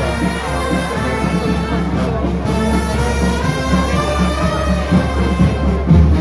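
Procession brass band playing a held, sustained melody over a steady low beat.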